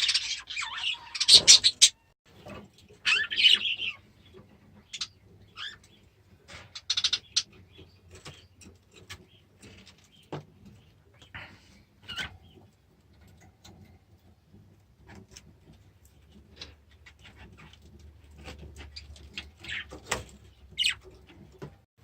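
Budgies chirping and chattering in short bursts, busiest in the first few seconds and again near the end, with scattered small clicks and scratches in between.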